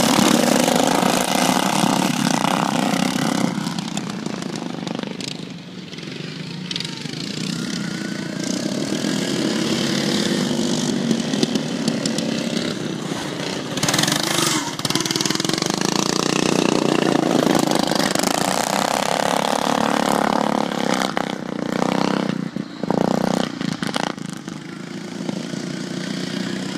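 Several stock riding lawn mowers racing, their small engines running hard together, swelling louder as machines pass close and fading as they pull away down the track.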